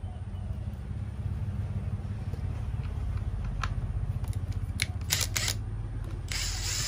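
Plastic clicks and knocks as the cover of a Zenoah BK2650 brushcutter engine is handled and worked with a screwdriver, growing busier in the second half, over a steady low rumble.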